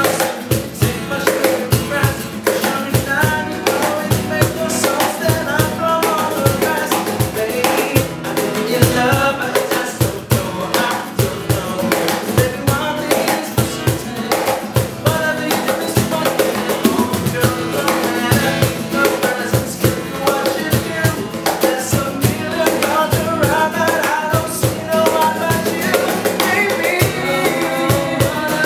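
Acoustic guitar strummed under a man's singing voice, with a cajón (box drum) slapped by hand keeping a steady beat.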